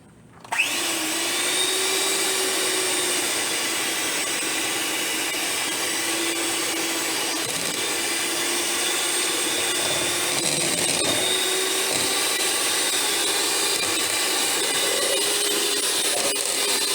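Electric hand mixer switched on about half a second in, its motor whining up to speed and then running steadily as the beaters whip a partly solidified hair-grease mixture.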